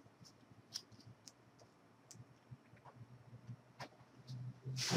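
Faint scattered clicks and light taps from a laptop LCD panel and its cable being handled and laid down, ending in a louder brief rustle.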